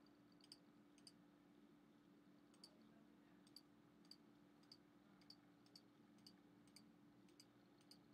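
Near silence: a faint steady low hum with faint, sharp clicks roughly every half second.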